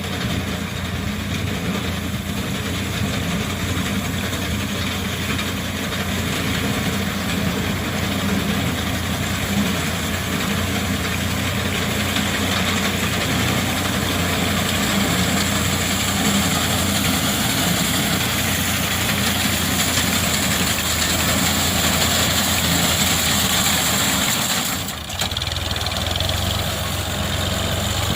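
Tractor engine running steadily while it drives a reaper cutting wheat, with a constant mechanical hiss over the engine. There is a brief dip in level about 25 seconds in.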